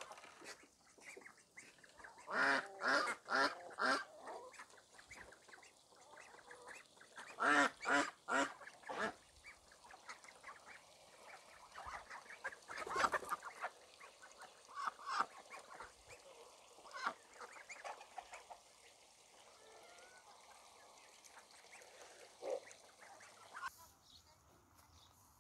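Domestic ducks quacking in quick runs of several loud calls, the first run about two seconds in and another near eight seconds, then scattered single quacks.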